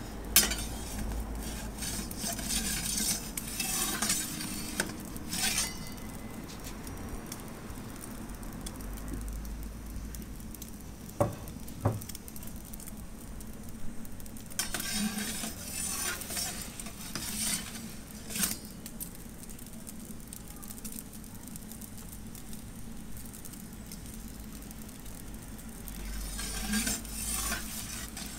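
Ardore gas pizza oven's burner hissing steadily, with a metal pizza peel scraping and clinking against the baking stone and oven mouth in several bursts while the pizza is turned: at the start, midway and near the end.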